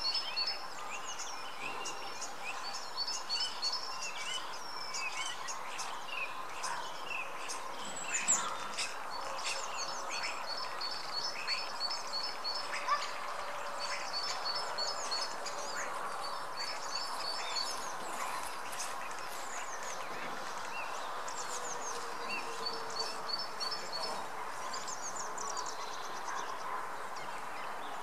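Small songbirds calling and singing: scattered high chirps and short trills, with a rapid series of repeated high notes every few seconds, over a steady background rush.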